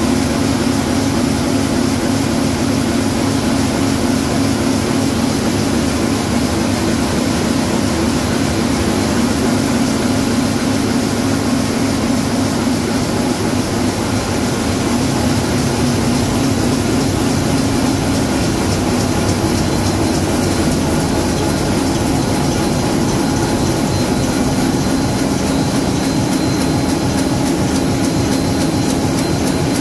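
Komori Lithrone L-440 four-colour sheet-fed offset printing press running: a loud, steady mechanical din with a fast, even clatter of its sheet-handling gear.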